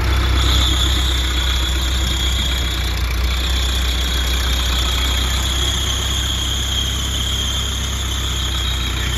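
Massey Ferguson 382 tractor's four-cylinder diesel engine running steadily as the tractor drives slowly forward, with a steady high-pitched whine over the low engine note.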